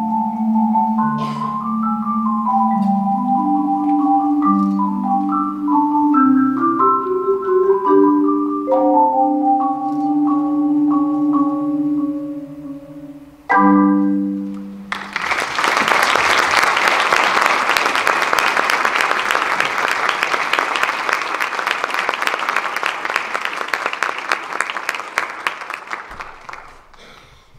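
A mallet percussion quartet plays the closing phrase in separate ringing notes and ends on one struck final chord that rings away. The audience then applauds for about ten seconds, and the applause fades out near the end.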